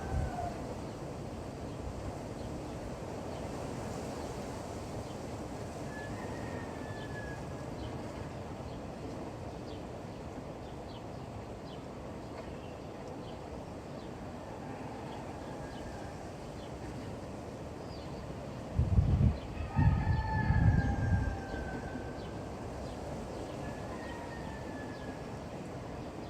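Rural morning ambience: steady wind with small birds calling now and then, and a rooster crowing in the distance at the start and again about 20 seconds in. A loud low rumbling comes in about 19 seconds in and lasts a couple of seconds.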